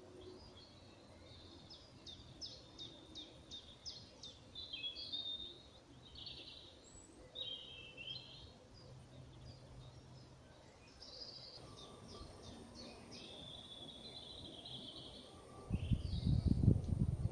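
Woodland birds calling and singing: fast runs of notes and scattered chirps over a faint background hush. Near the end, loud low rumbling bursts come in on the microphone.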